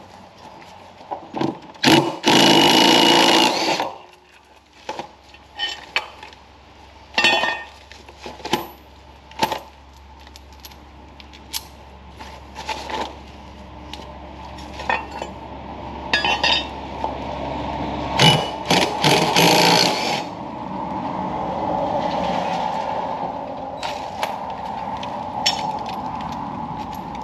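Cordless drill run in two bursts of about two seconds each, near the start and about two-thirds of the way through, while taking the blade bolts off a lawn mower's deck. Short metal clinks and knocks of bolts, blades and tools being handled fall between the bursts.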